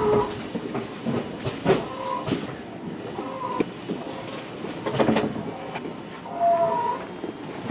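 JR Central 373 series electric train standing at a station: irregular clicks and knocks over a low hum, with several short high chirps scattered through.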